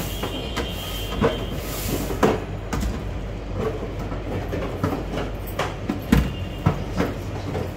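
Eggs clicking against one another and against a metal wire basket and stainless steel sink as they are picked up and set down, in irregular sharp taps, the sharpest about six seconds in, over a steady low background hum.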